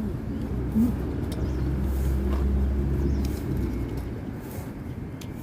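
A motor vehicle's low engine rumble that swells and then fades away, as a vehicle passes close by, with a few faint clicks.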